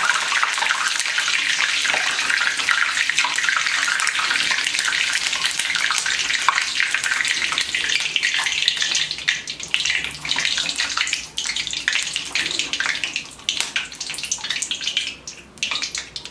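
Fresh curry leaves deep-frying in hot oil in a wire-mesh strainer: a dense, steady sizzle that thins out after about nine seconds into scattered crackles and pops as the leaves crisp.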